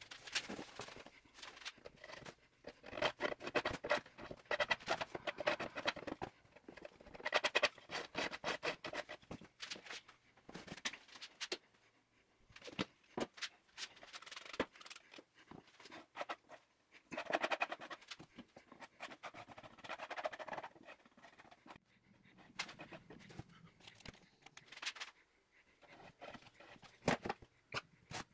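Metal scraper scraping paint that stripping gel has softened and bubbled off a wooden box lid, in runs of quick raspy strokes with short pauses between them.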